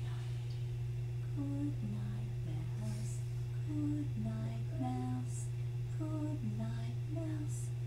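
A woman humming a slow lullaby tune without words, short held notes stepping up and down, starting about a second and a half in. A steady low hum runs underneath throughout.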